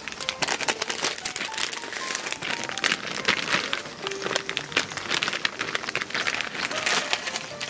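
Dense crackling and crinkling, many sharp irregular clicks, over soft background music.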